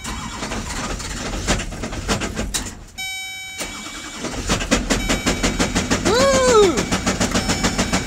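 LBZ Duramax 6.6-litre V8 turbodiesel of a GMC 5500 cranking, stopping briefly while a dash chime sounds about three seconds in, then cranking again and running. Once running it hammers out a fast, even rod knock, the engine coming apart after being driven on with no oil pressure.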